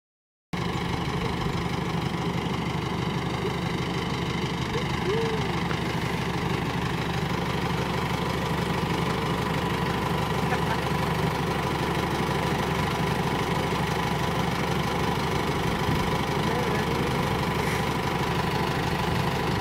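Open-top off-road jeep's engine idling steadily. The sound drops out for half a second at the very start.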